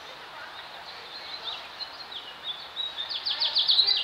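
Small birds chirping and twittering high over a steady background hiss, the chirps growing busier and ending in a quick run of about ten short notes near the end.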